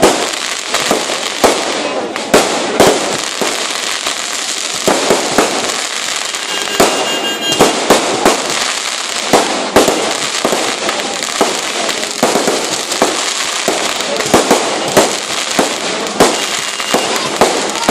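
Fireworks display: a continuous, irregular barrage of sharp bangs and crackling, with a short high whistle about seven seconds in.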